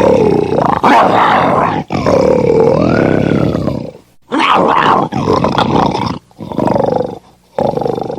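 Lion roaring and growling angrily: a run of about six rough calls, each a second or two long, with short breaks between. The long call in the middle rises and then falls in pitch.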